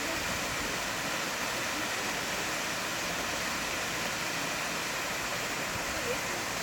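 Steady rushing of water pouring down an artificial waterfall, an even hiss-like roar without rhythm or change.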